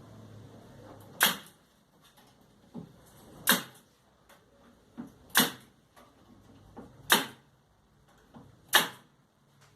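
Five sharp knocks on wood about two seconds apart, most of them preceded by a lighter tap a fraction of a second before.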